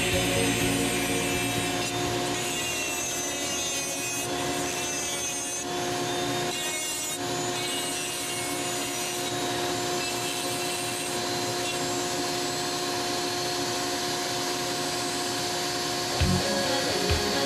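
Foredom flex-shaft rotary tool running steadily with a carbide tooth burr grinding white cedar: a constant motor whine over a dry rasping as the burr cuts the wood.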